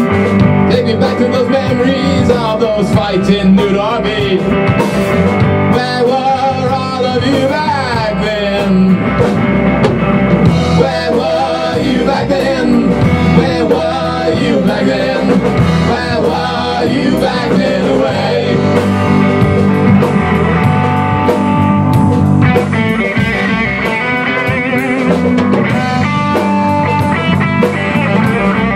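Rock band playing live on electric guitars and a Tama drum kit, with a man singing lead at times.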